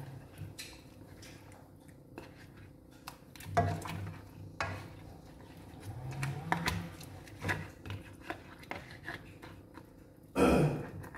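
Plastic spatula scraping and knocking against a nonstick wok as a coconut-milk fish curry is stirred: irregular light clicks and scrapes, with one louder scrape near the end.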